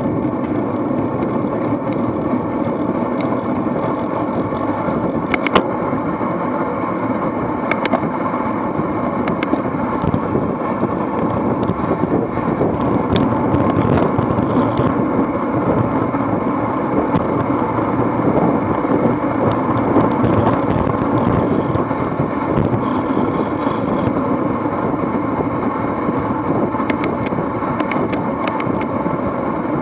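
Steady wind rushing over the microphone of an action camera on a road bike racing in a pack at around 35 mph, with tyre noise from the pavement underneath. A few sharp clicks come through, a couple early and more near the end.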